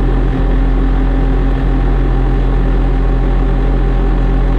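Bobcat T870 compact track loader's diesel engine running steadily at a constant speed.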